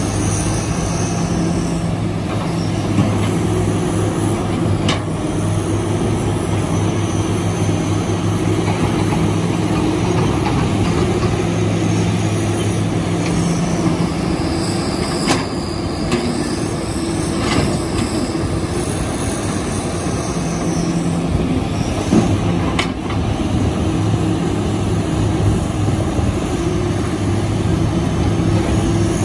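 Kobelco hydraulic excavator's diesel engine running steadily under working load as it digs and loads, with a few sharp knocks of rock and soil against the bucket or the dump truck's bed.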